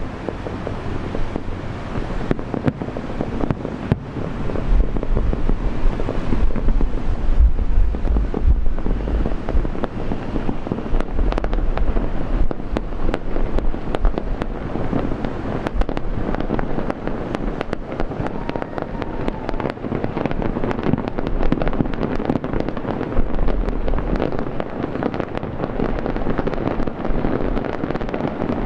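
Aerial fireworks show: shells bursting with a low rumble and dense crackling that thickens towards the end, with wind on the microphone.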